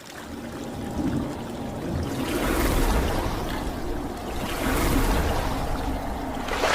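Rushing water, swelling and easing every couple of seconds.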